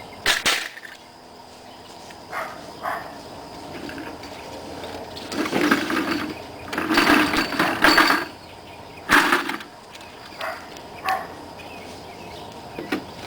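Irregular rustling, scraping and knocking as junk is moved about by hand. There is a louder stretch of handling from about five to eight and a half seconds in, then a single sharp knock about nine seconds in.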